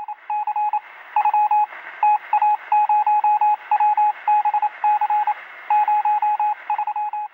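A run of short electronic beeps at one steady pitch, clipped and longer ones in uneven groups like Morse code, over a faint radio-style hiss.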